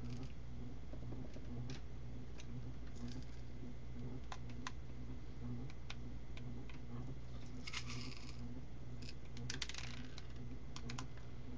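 Small craft beads clicking as they are dropped onto a glue-coated canvas, with scattered light ticks and two short rattles about two-thirds of the way through. A steady low electrical hum runs underneath.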